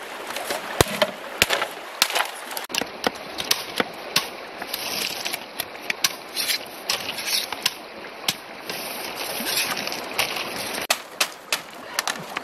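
A machete blade striking and splitting green bamboo: irregular sharp knocks and cracks over the steady rush of the river.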